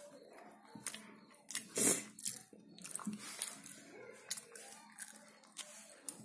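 A hamster chewing and biting: a run of irregular crunchy clicks, the loudest about two seconds in.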